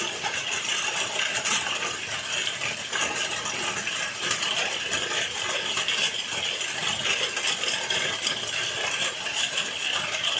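Heavy rain falling steadily: a dense patter of countless drops with no let-up.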